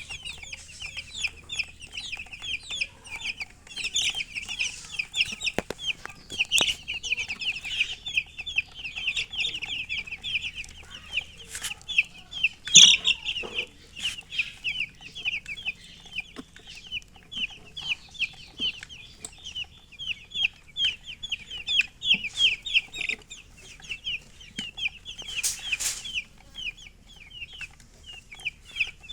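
A brood of baby chicks peeping continuously, many short high-pitched peeps overlapping in quick succession. A single sharp knock stands out about halfway through.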